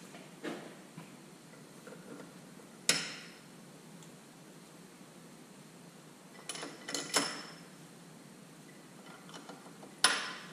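Sharp metallic clanks with short ringing tails from bolts and hand tools on the cylinder head of a Detroit Diesel 3-53 two-stroke engine: a soft knock at the start, a loud clank about three seconds in, three in quick succession around the middle, and another loud one near the end.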